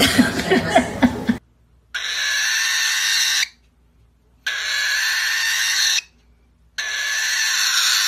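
A cockatiel giving three long, harsh, rasping calls, each about a second and a half, with short silent pauses between them. They are preceded by about a second of other sound with short pitched glides.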